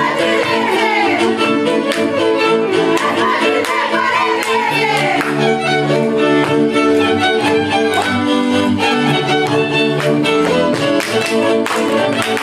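Transylvanian village string band of two fiddles and a double bass playing a Romanian dance tune from Mezőszopor: a lead fiddle melody over steady held chords and a bass line. Sharp stamps and boot slaps from the dancers are heard through the music.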